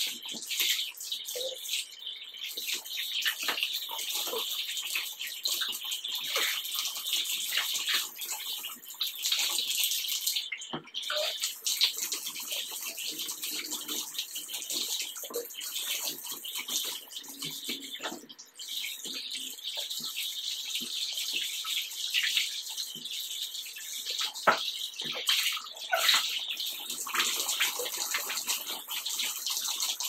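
Bath tap running steadily while hands rinse hair under the stream. The water splashes irregularly as it breaks over the head and fingers.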